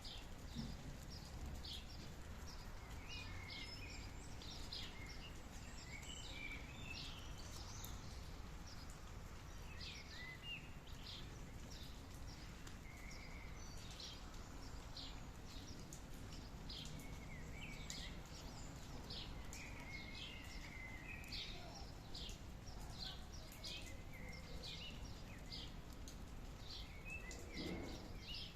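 Small birds chirping in short, repeated calls over a steady, even background of low natural noise.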